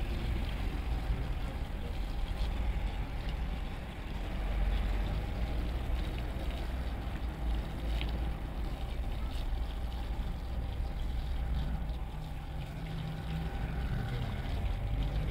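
Water from a garden hose splashing onto a soaked pile rug, over a steady low mechanical hum.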